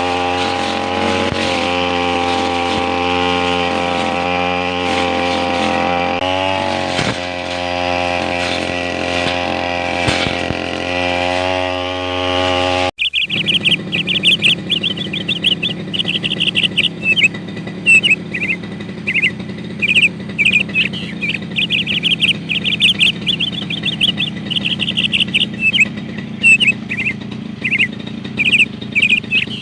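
A two-stroke brush cutter engine running steadily, its pitch wavering briefly twice. Almost halfway through it cuts off abruptly and gives way to birds chirping rapidly over a low steady hum.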